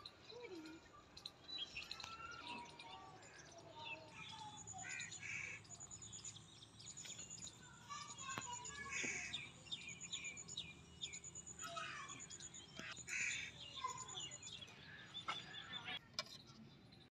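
Faint outdoor birdsong: several small birds chirping, with runs of a rapid high-pitched trill repeating every second or so.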